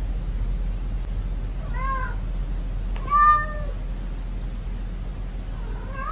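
Domestic cat meowing: two short meows about a second apart, the second louder, and another starting near the end.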